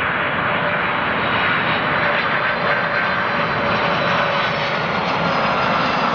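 Four-engined Boeing 747-400F cargo jet on short final and flaring to land, its engines making a loud, steady jet rush with a faint whine running through it.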